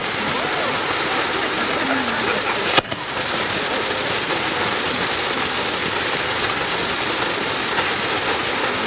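Several ground firework fountains burning together with a steady, loud hissing rush of sparks. A single sharp click sounds about three seconds in.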